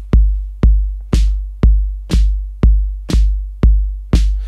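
Maschine+ drum machine loop: a deep, saturated and compressed kick drum on every beat, two per second, with a snare hit on every second kick from about a second in, the snare tapped in on a pad.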